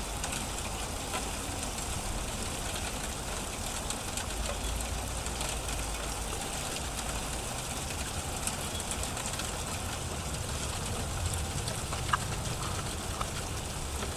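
Small, tiny hail pellets coming down hard: a dense, steady patter of fine ticks over a low steady rumble.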